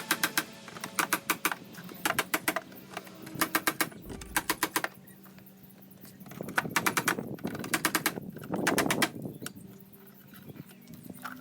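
Quick bursts of light taps on a car's sheet-metal wing, about ten taps a second in each burst with short pauses between, like a PDR knockdown tool and hammer working the panel.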